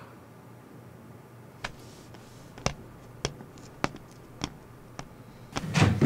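Footsteps of hard-soled shoes, about six evenly paced steps, followed near the end by a louder rattle and knock as the door is unlatched and opened.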